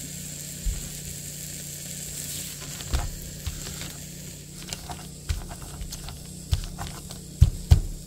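Oil sizzling steadily in a pan of frying dried sprats. Over it come irregular dull thuds of a pestle pounding grated coconut and chilli in a mortar, the loudest two close together near the end.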